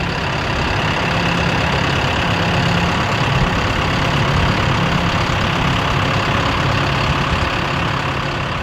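An engine running steadily, with a low hum.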